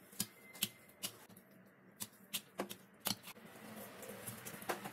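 Kitchen knife clicking against a steel plate as it cuts steamed egg into small pieces: about eight short, sharp taps at irregular spacing.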